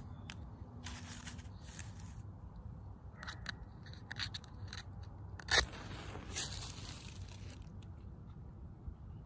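Wooden matches being struck against a matchbox: several short scraping strikes, the sharpest about halfway through, followed by a brief hiss.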